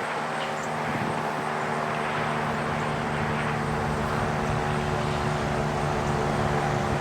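Federal Signal STH-10 outdoor warning siren coasting down after its test alert: a low, steady hum of several tones, holding nearly level in pitch, with wind on the microphone.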